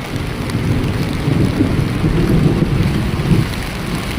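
Heavy rain pouring down in a storm, with a low rumble that swells in at the start and eases off after about three and a half seconds.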